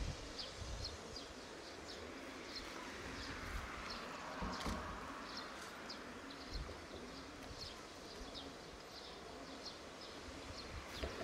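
Faint steady hiss of steam escaping from a standing C12 steam tank locomotive, with many short high chirps of small birds dotted over it, a couple each second. A brief low thump about halfway through.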